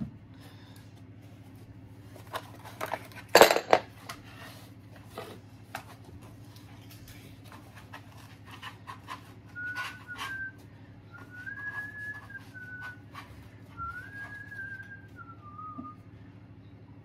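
A few knocks and a clatter of things being handled, loudest about three and a half seconds in, then a person whistling several short phrases of a tune from about ten seconds in.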